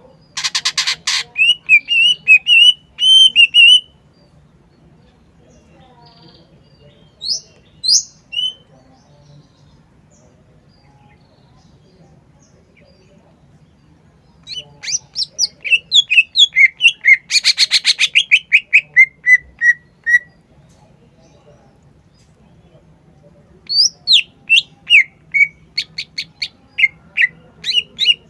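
Green leafbird (cucak ijo) singing vigorously in loud bursts of rapid repeated whistled notes and chattering trills, some phrases falling in pitch, with pauses of several seconds between bursts. A faint low hum runs underneath.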